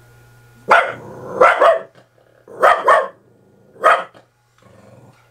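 A dog barking six times, loud and sharp, mostly in quick pairs.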